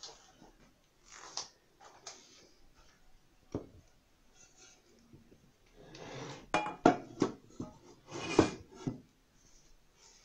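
Soft swishes of hands working a sandy flour-and-fat mixture in a glazed clay dish, and a single knock. From about six seconds in comes a louder clatter of kitchenware as a small saucepan is set down beside the dish.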